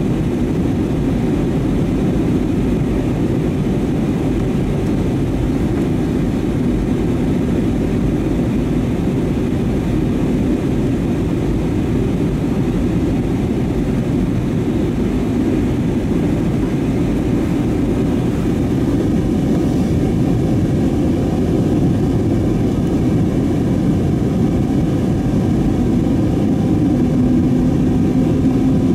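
Steady cabin noise of an Airbus A320neo airliner in flight: an even, loud rush of airflow and engine sound, heaviest in the low range. A faint steady hum joins it near the end.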